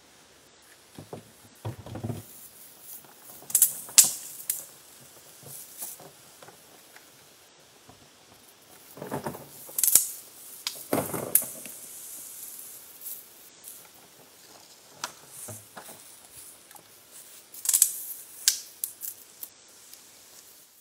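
Pump-action Super Soaker water gun being pumped and squirted: irregular plastic clicks and rattles with short hissing spurts. The loudest bursts come a few seconds in, around the middle and near the end.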